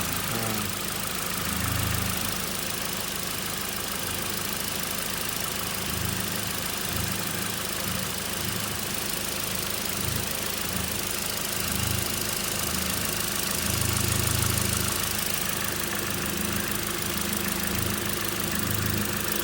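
2014 Toyota Corolla's 1.8-litre four-cylinder engine idling in reverse, with an irregular low rumble and chatter that swells and fades, loudest past the middle, as the engine mount is pressed by hand. The chattering is the sign of a torn motor mount letting the engine rock.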